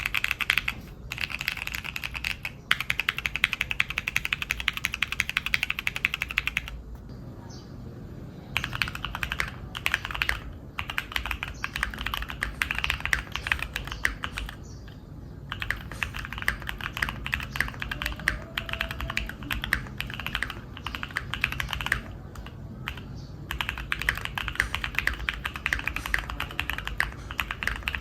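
Typing on a Neo65 custom mechanical keyboard: fast, continuous runs of key clicks, with brief pauses about seven, fifteen and twenty-two seconds in.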